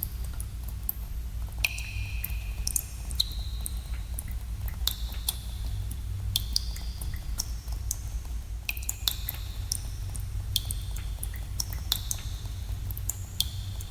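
Water drops falling irregularly in a cave, several a second: each lands with a short, bright plink that rings briefly, over a steady low rumble.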